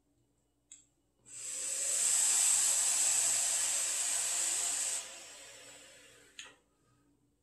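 Hissing draw on a vape for about four seconds that cuts off suddenly, followed by a weaker, fading hiss. A faint click comes just before the draw.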